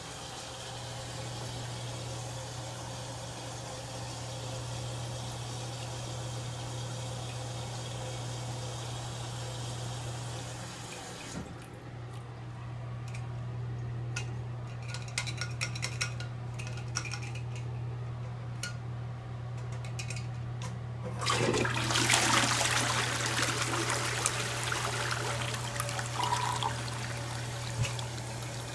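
American Standard open-rim toilet: water runs steadily into the bowl, then only scattered drips and trickles are heard. About twenty seconds in, the loud rush of a flush surges through the bowl for several seconds. A steady low hum runs underneath.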